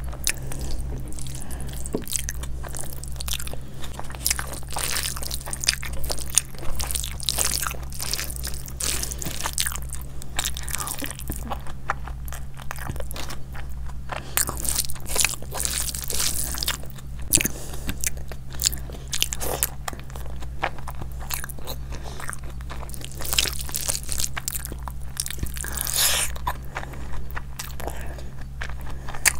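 Close-miked eating: a person chewing and biting into food, with irregular crunching and wet mouth clicks. A steady low hum runs underneath.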